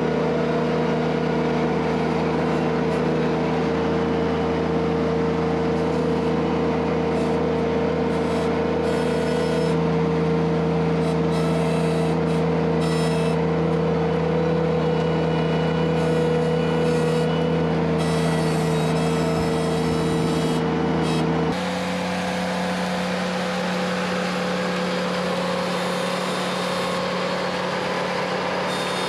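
Ventrac compact tractor's engine running steadily. About two-thirds of the way through, its tone and loudness change abruptly.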